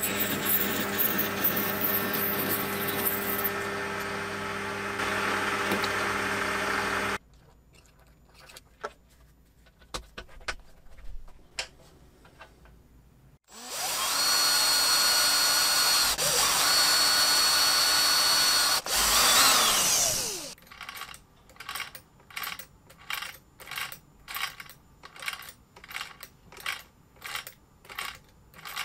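A small lathe turns a white plastic part, its motor humming steadily under the cut, and stops about seven seconds in. After a few faint handling clicks, a cordless drill spins up and bores into an aluminium plate for about seven seconds, its whine winding down at the end. A steady rhythm of short strokes, about two a second, closes the window.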